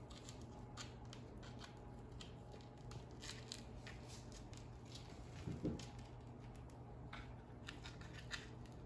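Faint soft crackles and rustles of tortilla strips coated with cream cheese and cinnamon sugar being rolled up by hand, over a low steady hum. A single short louder handling sound about five and a half seconds in.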